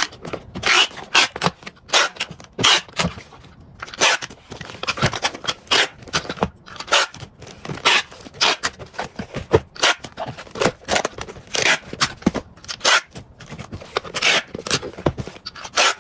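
Clear packing tape being pulled off a handheld tape dispenser and pressed onto a cardboard box, in many short noisy pulls one after another, with the odd snap as the tape is torn on the dispenser's teeth.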